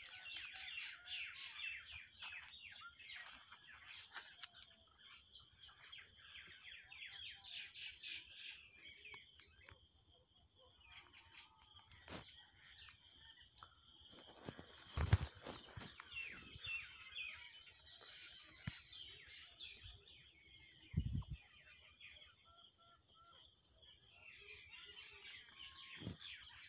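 Bursts of rapid bird chirping, bunched near the start, in the middle and near the end, over a steady high trill of crickets. Two low thumps come about halfway through and again a few seconds later.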